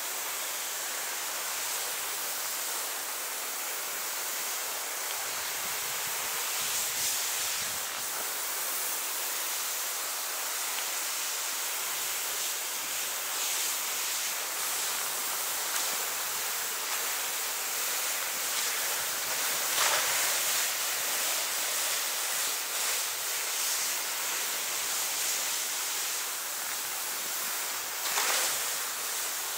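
Voile Hyper V6 BC fish-scale skis hissing steadily through soft powder snow on a downhill run, with a few short louder swooshes as the skis turn.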